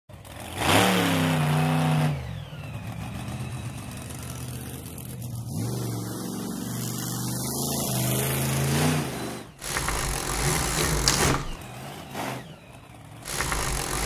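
Truck engine sound effect: an engine revs up about a second in, runs and revs again through the middle, then gives way to rougher, noisier rumbling in the last few seconds.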